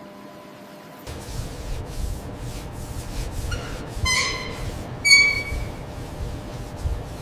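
A low mechanical rumble that starts suddenly about a second in, with two short, high metallic squeals about four and five seconds in.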